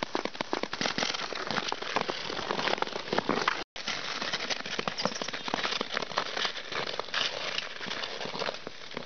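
Ice skate blades scraping and crunching over rough, snow-dusted creek ice: a dense, continuous crackle of small clicks and scrapes. It cuts out briefly a little under four seconds in.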